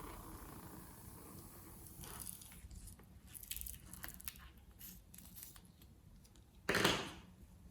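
Slime being handled and pressed, with scattered sticky crackles and clicks, then one loud short burst near the end.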